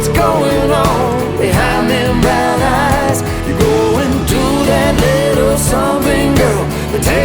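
Country-pop song with a singing voice over guitar and band backing.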